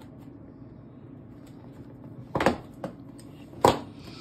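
A small cardboard box being cut open and handled on a wooden table: two sharp knocks, the second about a second and a quarter after the first, with a lighter tap between them.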